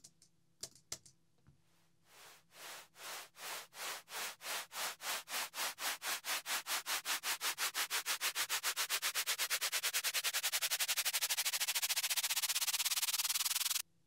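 A white noise riser chopped into rhythmic pulses by an Auto Pan LFO working as a ducking effect. The pulses start at about two a second and speed up to a fast flutter, growing louder and brighter, then cut off suddenly just before the end. A few clicks come first.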